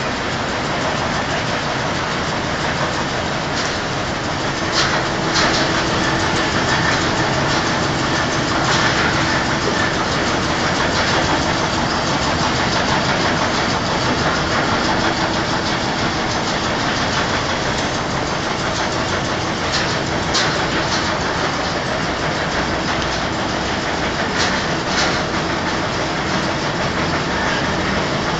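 Industrial fan running with a steady, dense whir and rumble, a faint steady hum tone through the middle and a few brief clicks. Its rotor has warped from overheating, according to the uploader.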